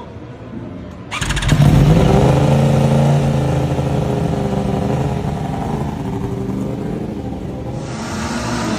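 Superbike racing engine firing up suddenly about a second in, then running at a fast, steady idle that drifts slowly lower. Near the end, more engine noise rises over it.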